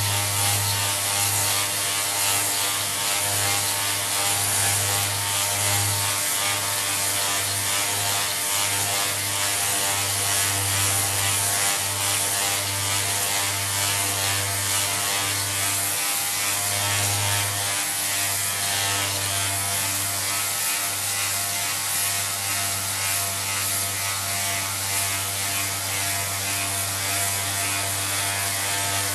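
Electric orbital sander with 180-grit paper running steadily on a freshly milled metal surface: a steady motor hum with a sanding hiss, faltering briefly about halfway through.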